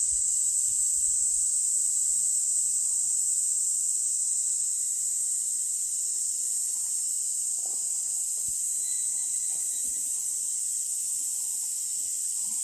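Steady high-pitched drone of an outdoor insect chorus, even throughout, with a few faint soft knocks and rustles underneath.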